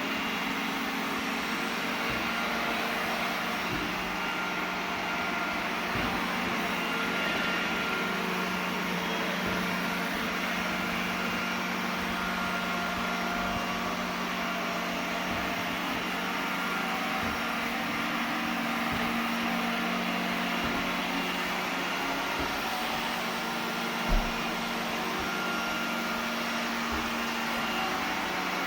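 iRobot Roomba 980 robot vacuum running steadily, its suction fan and brush motors making a constant whirring hum. There is one short knock about three-quarters of the way through.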